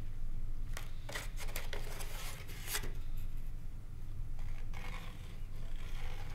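Rubbing and scraping of the foam wing and fuselage of a model jet being handled and positioned, in a close cluster of rough strokes about a second in, then fainter rustling as glue is squeezed onto the foam wing saddle. A steady low hum runs underneath.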